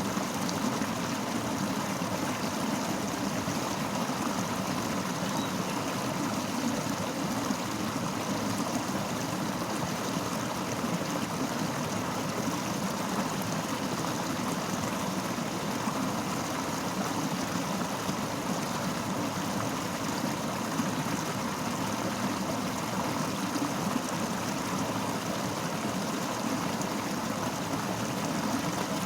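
Fast-flowing river rushing and gurgling over rocks, a steady unbroken wash of water noise.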